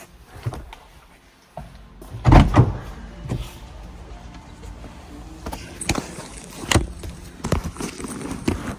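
Irregular knocks and clunks of hand work on a car's interior trim and steering column. The loudest is a short cluster of knocks about two and a half seconds in, with single sharper knocks after it.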